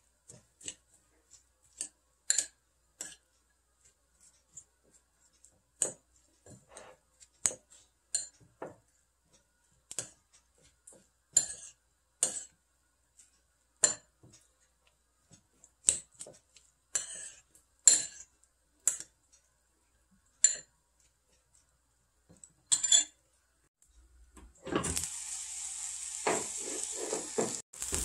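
A metal spoon clinking and scraping against a ceramic bowl in irregular strikes about a second apart, stirring a soy-sauce seasoning. About 24 seconds in this gives way to a steady sizzle of rice and bean sprouts frying in a hot pot, stirred with a wooden spatula.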